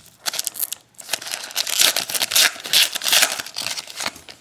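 Foil trading-card pack wrapper crinkling and crackling as it is torn open and peeled back by hand. It comes in quick, sharp crinkles, with a brief lull just under a second in.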